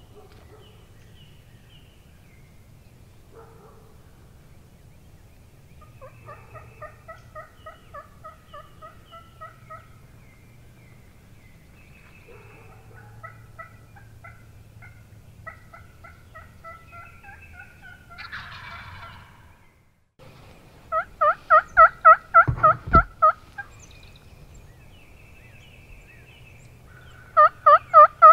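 Turkey yelping in runs of evenly spaced notes, about four a second. Two soft, distant-sounding runs come first. Then there are two loud runs of about ten notes each, the second starting near the end. A dull thump falls in the middle of the first loud run.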